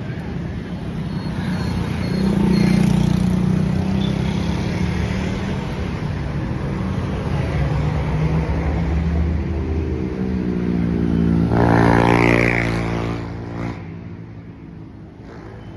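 Road traffic passing close by: motor vehicles drive past one after another. The loudest passes come about three seconds in and again around twelve seconds, the second with a clear engine tone that rises a little and then fades away.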